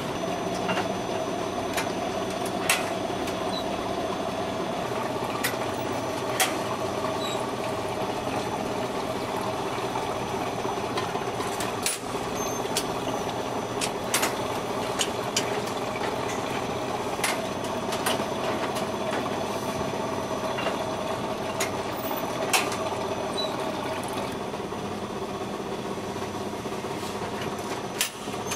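Automatic mini-bread baking machine running: a steady mechanical hum with scattered sharp metal clicks.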